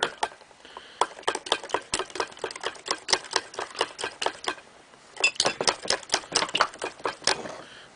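A metal teaspoon clinks rapidly against a glass mug as egg yolks and sugar are beaten into kogel-mogel. It makes several strikes a second, with a short pause just past halfway.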